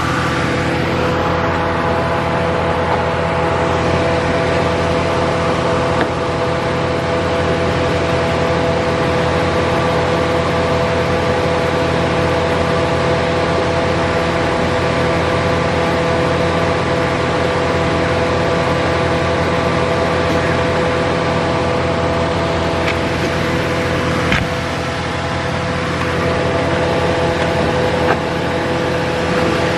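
A pickup truck's engine idling, a steady hum with several constant tones. A couple of sharp clicks come near the end.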